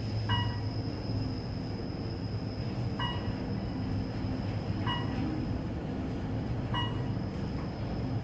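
Elevator running with a steady low hum and a thin high whine, while a short electronic beep sounds four times, about every two seconds.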